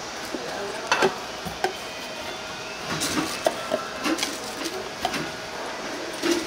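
Irregular knocks and clatter of kitchen utensils and dishes at a food stall, over a faint steady background hum.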